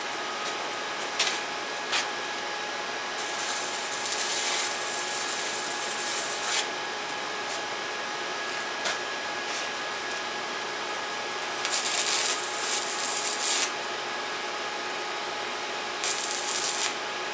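Stick welding arc on thin exhaust pipe with a 1/16-inch rod: a couple of sharp scratches as the rod is struck, then three bursts of crackling, sizzling arc, the first about three seconds long, the next two shorter, as tack welds are laid. A steady hum with a faint whine runs underneath.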